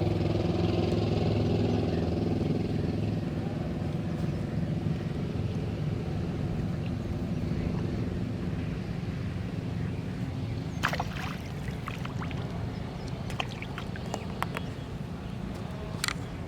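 A motor runs at a steady pitch, starting abruptly and slowly fading, with a few sharp clicks or knocks in the second half.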